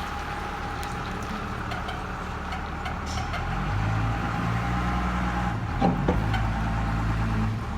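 A vehicle engine running steadily, then speeding up and getting louder about three and a half seconds in, with a couple of sharp knocks around six seconds in.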